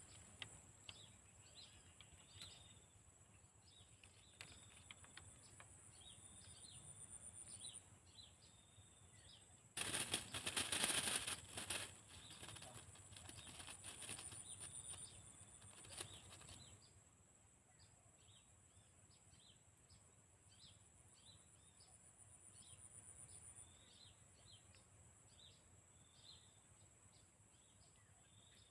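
Faint outdoor ambience of small birds chirping again and again over a steady high-pitched hum, with a louder rough noise lasting about two seconds around ten seconds in and a sharp knock a few seconds later.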